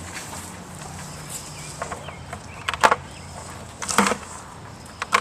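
Three sharp knocks, each about a second or more apart, over a steady low hum.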